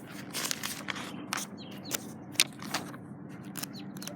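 Paper pages of a book being turned one after another, irregular rustles and crackles of paper, some pages stuck together by BB holes being peeled apart.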